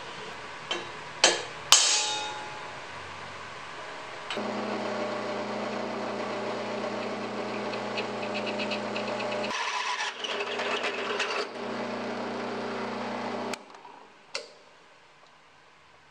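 A few sharp metal clanks about a second in. Then a drill press motor runs with a steady hum while the twist bit cuts through a stainless steel flat bar held in a vise, and the motor stops suddenly near the end.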